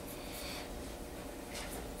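A comb drawn through hair, two short soft scratching strokes, over a faint steady hum.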